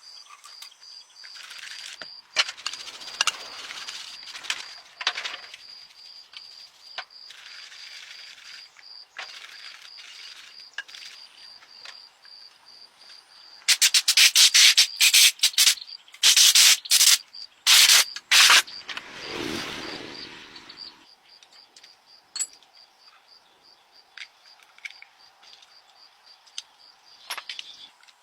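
Scraping and rubbing of a hand tool on engine parts in irregular strokes, with two runs of loud, quick strokes about halfway through.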